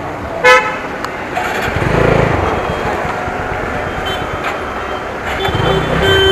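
Motorcycle moving off at low speed, its engine swelling twice as the throttle opens. A short, loud horn beep sounds about half a second in.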